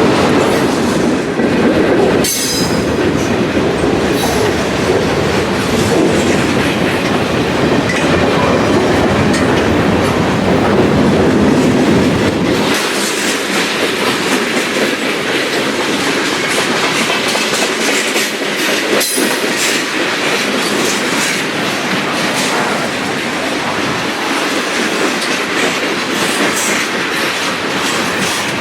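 A train rolling past, its wheels clicking and clattering over the rail joints. About halfway through, the deep rumble drops away, leaving the higher rattle and hiss of the wheels on the rail.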